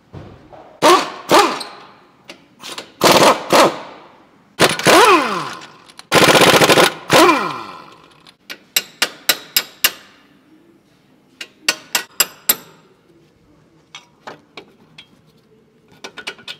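Impact wrench hammering on the front wheel hub in four bursts of about a second each, its motor whine falling in pitch after each release of the trigger. Two quick runs of sharp metallic clicks follow, then a few scattered clicks near the end.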